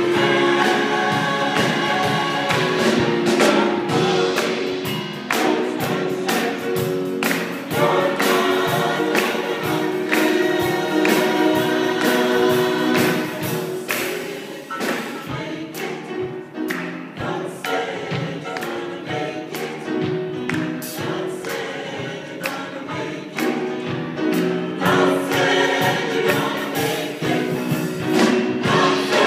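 Gospel choir singing over a steady beat; the singing drops softer for a stretch in the middle and swells back up near the end.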